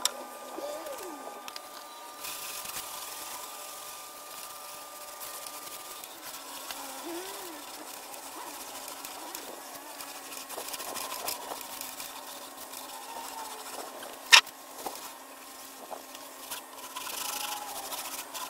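Cloth rag rubbing and wiping over a sealed OSB tabletop, with a faint steady hum underneath. A single sharp knock about fourteen seconds in.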